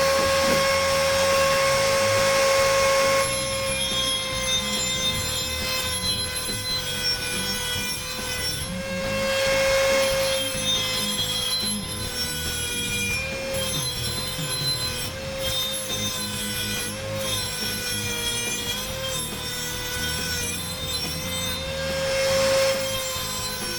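Ryobi P460 18-volt cordless rotary tool spinning a cutoff wheel at high speed, a steady high whine. A few seconds in it drops slightly in pitch and wavers as the wheel grinds into thick steel, with swells of gritty cutting noise.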